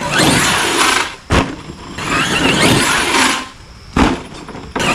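Arrma Outcast 8S RC stunt truck's electric motor and drivetrain whining in bursts of throttle as it tears over grass and dirt, with a heavy landing thump about a second and a half in. A short lull near the end, then the throttle comes on again.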